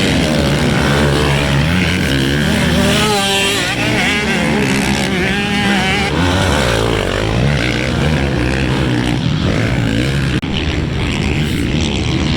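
Several motocross dirt bike engines running and revving at once, their pitches rising and falling as they change speed.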